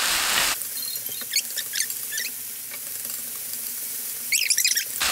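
Wooden spoon stirring and scraping vegetables in a nonstick frying pan: a few short squeaky scrapes a second or two in and a quicker run of them near the end. The loud sizzle of the frying drops away abruptly about half a second in, leaving a faint hiss.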